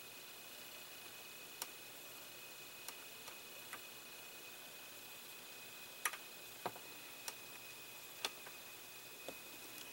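Scattered small clicks and taps of metal tweezers against thin wires and a plastic model dashboard, about nine in all at uneven intervals, over a steady faint hiss. The sharpest click comes about six seconds in.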